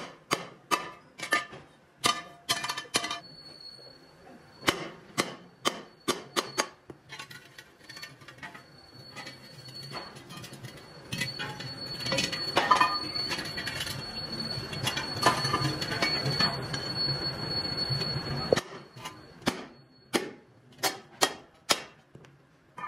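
Hammer blows on a steel wheel rim and the steel disc set inside it, sharp ringing metal strikes coming in uneven runs at the start and again near the end. In between there is a longer stretch of metal scraping and clattering as the rim is handled.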